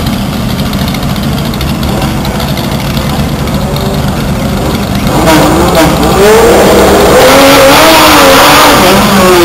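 Drag-race engines, a Chevrolet V8 dragster and a Falcon, running steadily at the start line. From about five seconds in they rev hard, much louder, with the pitch swinging up and down.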